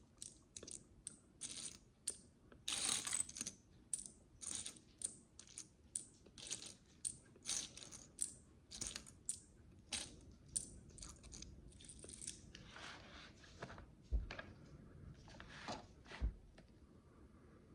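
Micro bricks, tiny plastic building blocks, clicking and rattling as they are handled and pressed together. A quick run of small clicks, about two a second, with a longer rattle a few seconds in; the clicks thin out and stop near the end.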